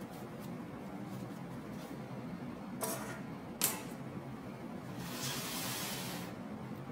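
Two light clicks about a second apart as a plastic utility knife is picked up and set down on the tabletop. About a second later comes a second or so of stiff paper rustling as a paper shopping bag is slid across the table. A low steady room hum runs underneath.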